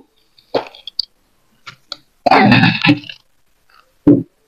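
A person clearing their throat: one loud, harsh burst about two seconds in, with a few short clicks and mouth noises around it.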